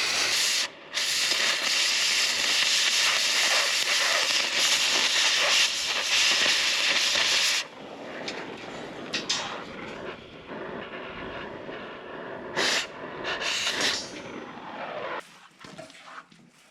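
Aerosol spray-paint can hissing as direct-to-metal paint is sprayed onto steel: one long spray of about seven seconds with a brief pause near the start, then several short bursts.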